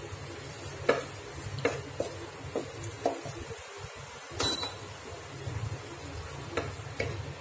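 A spatula stirring and scraping paneer bharta around a nonstick pan, with irregular scrapes and taps about once a second over a steady low hum.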